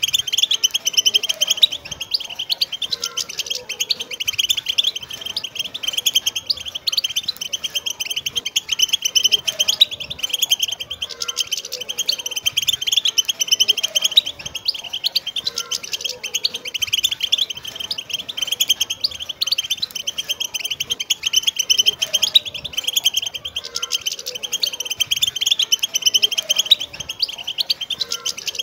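A flock of wild European goldfinches chattering and twittering together in a dense, unbroken chorus.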